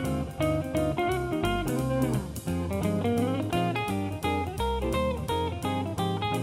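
Background music: an instrumental led by plucked guitar, quick picked notes over a bass line.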